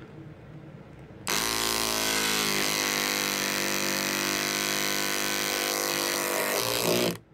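Small electric gourd saw switched on about a second in and run steadily for about six seconds, cutting through the plywood holding tabs left by the CNC to free the end pieces; its pitch dips a little soon after it starts, then holds until it shuts off near the end.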